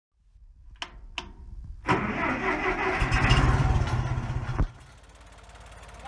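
Tractor engine starting: two sharp clicks, then the starter cranking with a rough, rhythmic churning that cuts off suddenly about two-thirds through. A low, steady engine run carries on after it.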